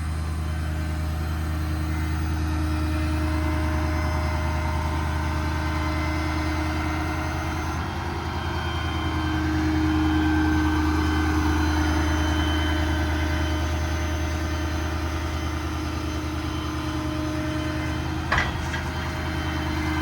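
Ford 6.7 L Power Stroke V8 diesel running steadily with the PTO engaged to drive the crane's hydraulic pump. A higher hum swells about halfway through, and there is one short sharp clank near the end.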